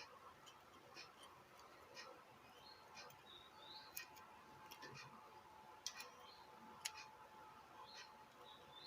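Near silence with faint ticking about once a second.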